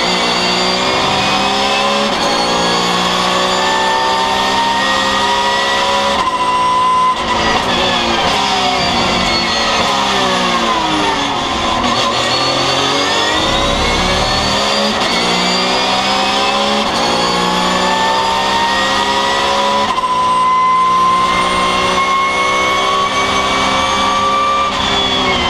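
Porsche 911 GT3 Cup race car's flat-six engine heard from inside the cockpit at racing speed, its pitch climbing hard through the gears with quick upshifts about 7 and 20 seconds in. Between the climbs it falls away as the car brakes and downshifts, around 10 to 12 seconds in and again near the end.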